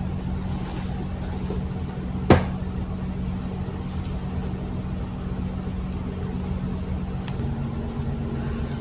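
Steady low mechanical hum, like a motor running in the background, with one sharp click about two seconds in.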